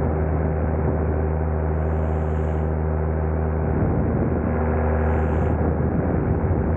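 Light aircraft's engine and propeller running steadily, a continuous drone whose pitch wavers a little for a few seconds past the middle.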